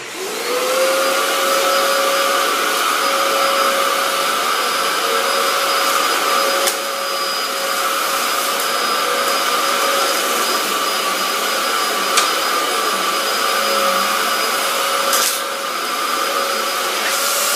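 Dyson DC07 upright vacuum cleaner switched on, its motor whining up to speed, running steadily at full power, then switched off and winding down near the end; very loud.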